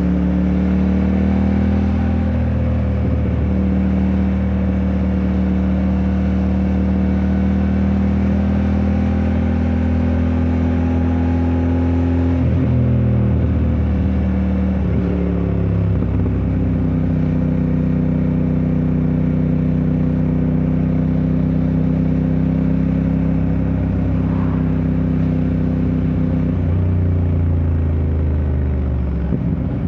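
QJ Motor SRT 600SX motorcycle engine pulling under way. Its note rises slowly at first, drops and changes twice a little before halfway, holds steady, and dips again near the end.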